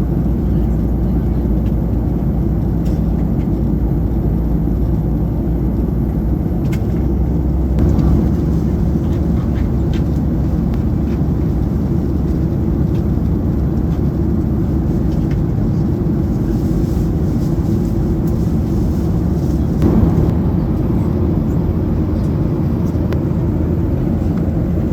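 Steady low rumble of a Boeing 737-800 cabin in flight: engine and airflow noise, with a couple of brief soft knocks.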